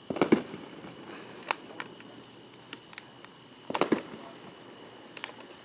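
Scattered firework bangs and cracks: a short burst at the start, single sharp cracks every second or so, and a louder cluster a little under four seconds in.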